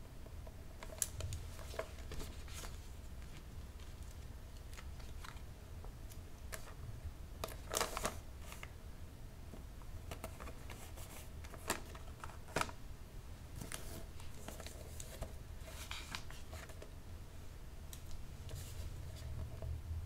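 Close-up hand sounds of gift wrapping: wrapping paper rustling and crinkling, with scattered sharp clicks and taps and a louder cluster about eight seconds in.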